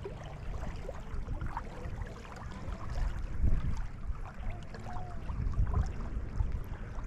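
Wind rumbling unevenly on the microphone over an outdoor water ambience, with faint short whistle-like calls here and there.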